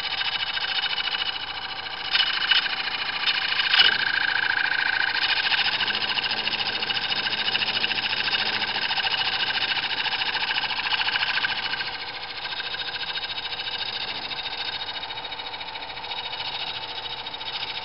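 Wood lathe running while a cutting tool on a compound rest is fed into spinning wood, a steady hissing scrape over the motor's hum, with a few sharp catches about two to four seconds in. The cutting noise eases about twelve seconds in as the tool is backed off.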